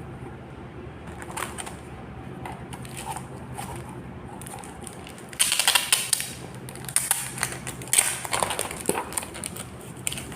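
Packaging being handled and unwrapped: scattered clicks and crinkles, with two loud bursts of crackling, the first just past halfway and the second around eight seconds in. A steady low hum runs underneath.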